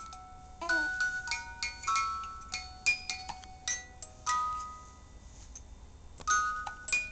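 Bell-like struck notes, like a glockenspiel or chimes, ringing out one after another at irregular intervals and different pitches. A short wavering pitched squeak comes less than a second in.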